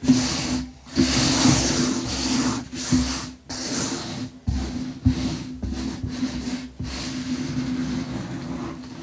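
Crunching and crumbling of 'glitter bomb' blocks being crushed, in a series of loud hissy bursts with short gaps between them, easing off near the end. A steady low hum runs underneath.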